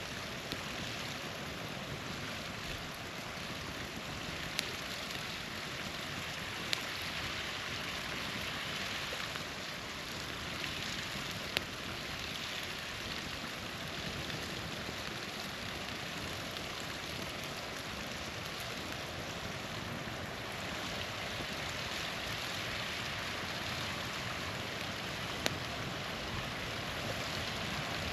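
Small waterfall rushing steadily, with a few sharp pops from a crackling campfire, the loudest about a third and two fifths of the way in and near the end.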